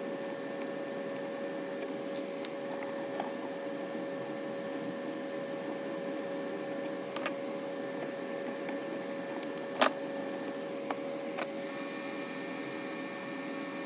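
3D printer humming steadily, with a few light clicks and one sharper click about ten seconds in. A higher whine joins near the end.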